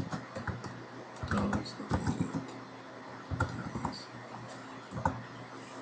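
Computer keyboard and mouse being used: irregular clusters of key taps and clicks, as a search term is typed in and entered, over a faint low hum.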